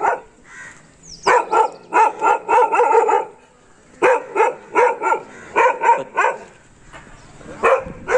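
A tan short-haired dog barking at a man it barks at whenever it sees him, in two quick runs of about seven barks with a short pause between, plus a single bark near the start and near the end.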